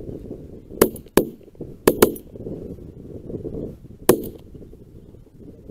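Five sharp shotgun shots: two close together about a second in, a quick pair around two seconds in, and a last one near four seconds. Wind rumbles on the microphone underneath.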